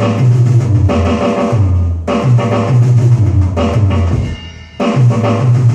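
Roland electronic drum kit played through its sound module: fast runs of bass drum and tom hits. The playing breaks off briefly about two seconds in and again just before the end.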